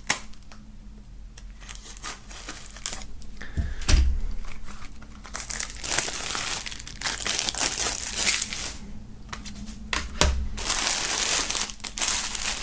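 Clear plastic shrink-wrap film being cut with scissors and pulled off a CD jewel case, crinkling and tearing, with heavier crinkling in the second half. There are two dull knocks, the first, about four seconds in, the loudest moment.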